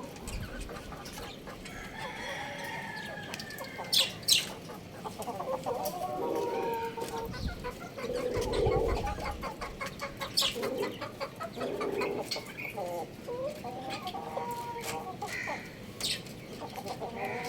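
Young rooster clucking, a run of short calls, with a few sharp ticks in between.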